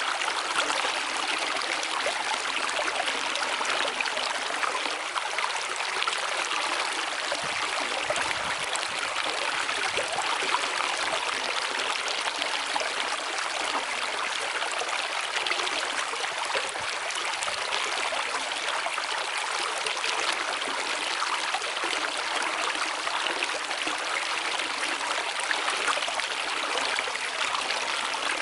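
Steady rushing of a flowing stream or river: an even, splashing hiss with little low rumble that never pauses.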